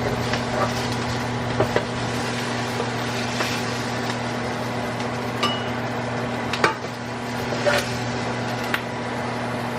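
Utensil clinking and scraping against a skillet as cooked fajita vegetables are scooped out into a bowl: a dozen or so scattered short clinks. Under them runs a steady low hum, the kitchen fans.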